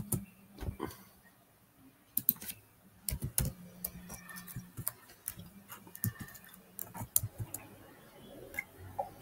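Irregular, scattered clicks and taps of a computer keyboard and mouse being typed on and clicked, over a faint steady low hum.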